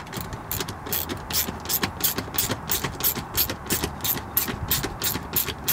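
Ratcheting driver with a T25 Torx bit tightening the carpet trim screw, its pawl clicking in a quick even run of about four or five clicks a second.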